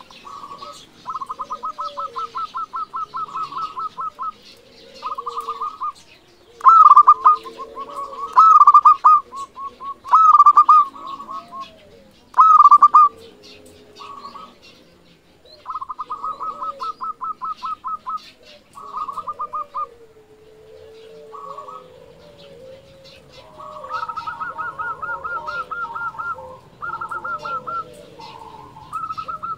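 Zebra dove (perkutut) cooing: repeated phrases of fast, rapid-fire coos, each a second or two long with short pauses between, loudest in the first half. Faint chirps of other birds behind.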